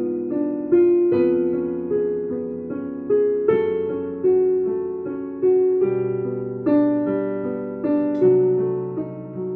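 Piano playing a slow melody over held chords. A new note or chord is struck about every three-quarters of a second, and each one rings on and fades.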